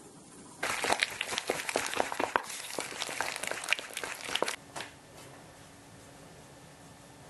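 Dense crinkling and rustling full of small crackles for about four seconds, stopping abruptly near the middle.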